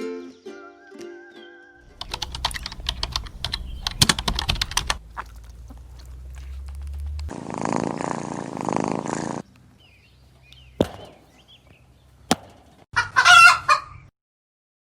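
Ukulele music ends in the first two seconds; then scattered taps and knocks over a low rumble, and a loud chicken call lasting about a second near the end.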